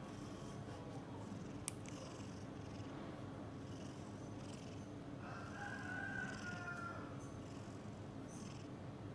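Calico cat purring steadily while its head and neck are massaged. A single sharp click sounds about two seconds in, and a faint drawn-out higher tone comes near the middle.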